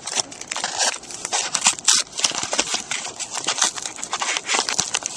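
A paper mailing envelope being pulled and torn open by hand: a steady run of crinkling and crackling.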